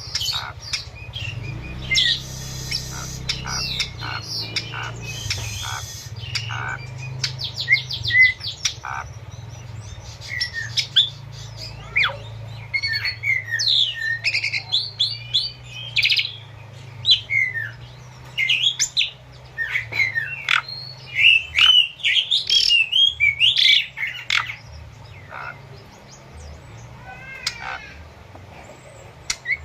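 Pied starling (jalak suren) singing a long, varied song that mixes harsh squawks and rattles, a quick run of clicks and sliding whistled notes, the phrases thinning out near the end.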